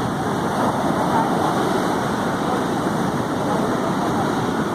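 Sea surf washing in a steady rushing noise, without any separate crashes.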